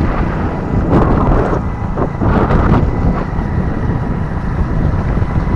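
Wind buffeting the microphone on a vehicle moving at road speed, over a steady low rumble of engine and tyres.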